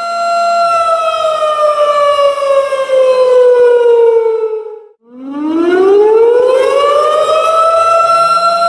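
Tornado warning siren wailing: a steady tone that slides slowly down in pitch for about four seconds, cuts out briefly about five seconds in, then winds back up to the same steady pitch.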